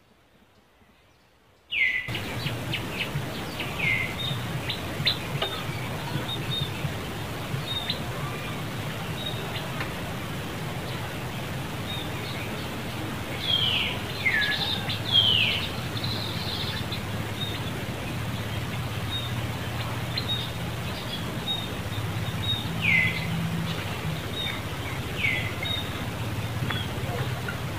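After about two near-silent seconds, outdoor ambience: a steady low hum with scattered small high chirps and a few short calls that drop in pitch, heard early, in a pair around the middle and again late on.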